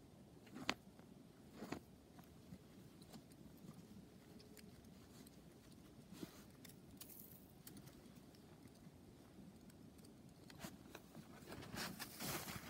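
Quiet handling of a leather and beaver-fur sack with a few small clicks, then footsteps crunching through deep snow starting about ten seconds in.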